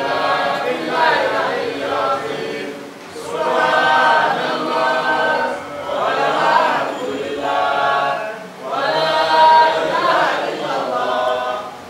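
Unaccompanied vocal chanting, sung in phrases of about two to three seconds with short breaks between them.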